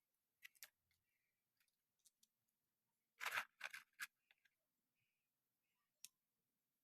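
Faint, sparse clicks and short scrapes of something being handled. The loudest cluster comes just after three seconds in, with a single click about six seconds in.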